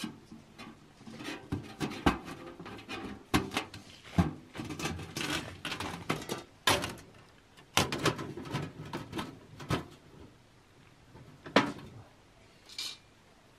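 Irregular light clicks, taps and scrapes of thin titanium panels and pins being fitted together by hand as a folding titanium stove is assembled. The clicks come thick and fast at first and thin out over the last few seconds, leaving one sharp click near the end.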